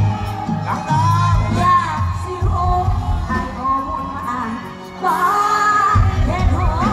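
Live Thai song played loud through a stage sound system: a woman singing a gliding melody over a band with heavy bass and drums. The bass and drums thin out for a couple of seconds mid-way and come back in strongly about five seconds in.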